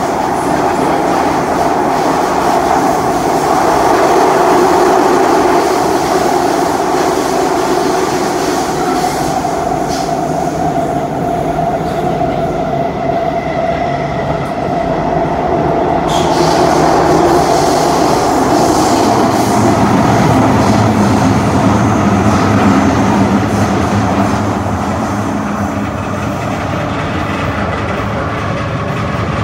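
Cabin noise of an SMRT C151C metro train running through a tunnel: a steady rumble of wheels on rail and running gear, with a steady tone running through it.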